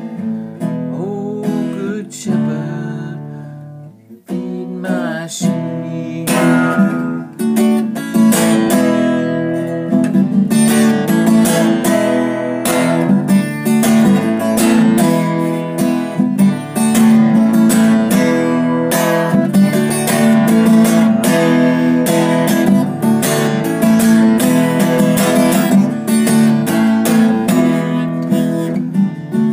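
Acoustic guitar played without voice, sparse at first, then settling into steady, full strumming about six seconds in.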